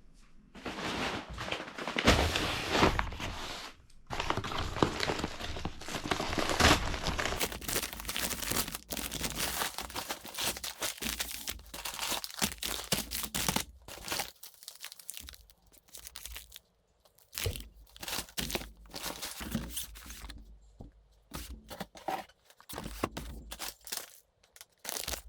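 Packaging being torn open and crinkled: dense crackling for the first half, then handling in short separate bursts.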